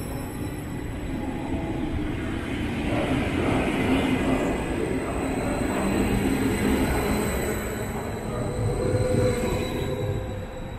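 DB Intercity 2 double-deck train rolling past along the platform: a continuous rumble of wheels on the rails with a few faint steady tones over it, a little louder in the middle.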